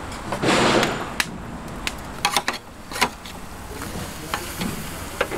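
Kitchen work sounds: a brief rush of noise about half a second in, then scattered sharp knocks and clacks of utensils, several in quick succession near the middle.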